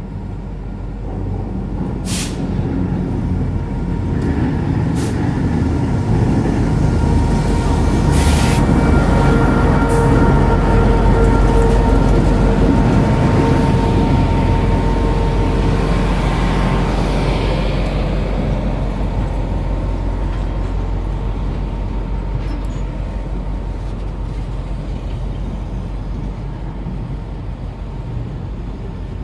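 Diesel-hauled passenger train rolling slowly past over a steel bridge, its rumble building to a peak about a third of the way in and then slowly fading as the coaches pass. Steady brake squeal and a few short sharp noises come in as the train slows toward a stop for a red signal.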